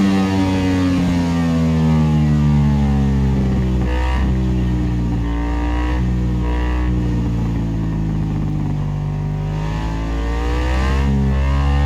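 Ducati Desmosedici D16RR's desmodromic V4 engine running under way: its note falls slowly over the first few seconds, changes briefly about four seconds in, holds steady, then rises again near the end.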